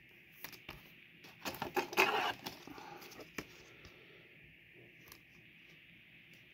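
Trading cards being handled and slid into clear plastic card sleeves: scattered small plastic clicks and rustles, with a denser cluster of rustling about two seconds in.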